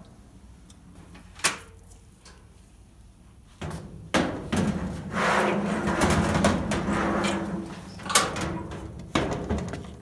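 Steel dryer drum being worked into the cabinet: after a click and a quiet start, several seconds of sheet-metal scraping, then a few sharp knocks near the end.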